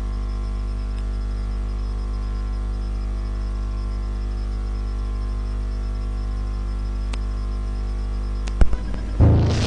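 Steady electrical mains hum with a row of evenly spaced overtones, with a few sharp clicks near the end. Loud music starts abruptly about nine seconds in.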